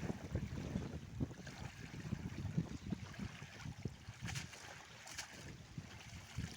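Wind rumbling on the microphone over river water, with two brief splashes about four and five seconds in.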